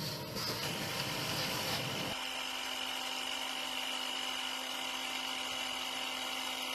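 A rushing, rubbing noise for about two seconds, then a hand-held electric power tool running steadily on the machine's slideways, with a constant hum and a high whine.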